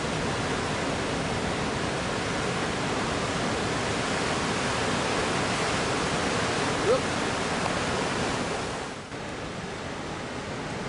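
Steady rush of ocean surf breaking along the beach. A brief short call-like sound comes about seven seconds in. About nine seconds in there is a short dip, and after it the rush goes on a little quieter.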